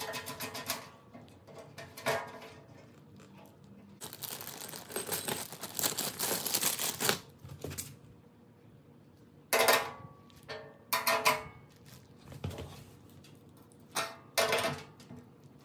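Metal clinks and clanks as a small wrench and bolts knock against a steel grill leg bracket during assembly, with a few seconds of crinkling rustle beforehand. The clinks come as several sharp strikes that ring briefly, the loudest two about a second and a half apart.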